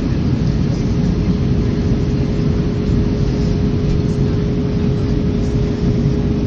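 Airbus A320 cabin noise from a window seat in flight: the steady roar of the jet engines and the air rushing past the fuselage, with a steady hum running through it.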